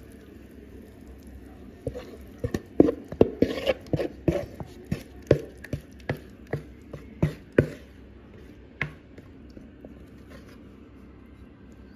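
A spoon knocking and scraping against a metal tube pan as thick grated-cassava cake batter is spooned in: a run of irregular knocks, about one or two a second, from about two seconds in until near nine seconds in.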